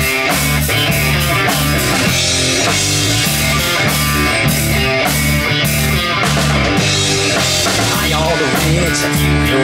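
Live rock band playing an instrumental passage: distorted electric guitars and a repeating low riff over a steady drum-kit beat.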